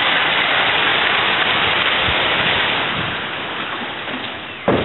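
Heavy hailstorm: hailstones and rain pelting the ground in a loud, steady rush of noise. The noise fades over the last couple of seconds as it becomes muffled indoors.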